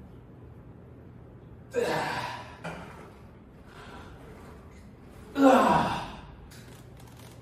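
A man's loud, forceful exhalations of effort while straining through heavy lower-body lifts, two big breaths about three and a half seconds apart with a smaller one between them, over a faint steady hum.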